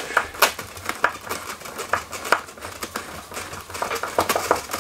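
Phillips screwdriver turning out a screw through the base of a polystyrene packing box, with irregular clicks and scratchy creaks of the screw and foam.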